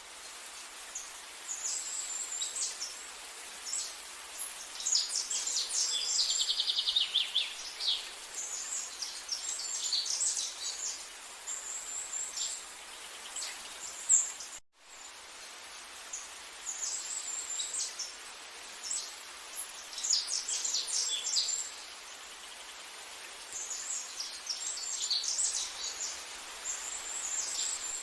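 Birds singing and chirping in quick high phrases over a steady background hiss, including a fast even trill about six seconds in. The sound cuts out for an instant about halfway through.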